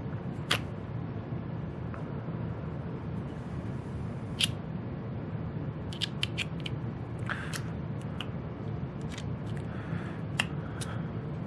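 Scattered small sharp clicks and snips of hand tools working at a small plastic audio adapter, several in quick succession a little past the middle, over a steady low hum.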